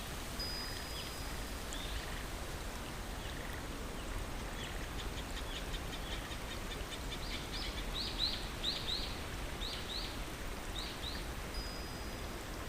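Steady rush of flowing water with songbirds calling over it: a thin high whistle near the start, a fast trill of ticks around the middle, then a string of sharp, quick chirps.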